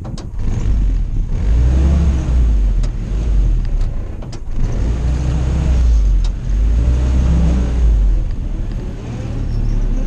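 Willys CJ-2A Jeep's four-cylinder Go Devil engine, under load as it crawls over dirt mounds, revving up and easing off about three times with a heavy low rumble.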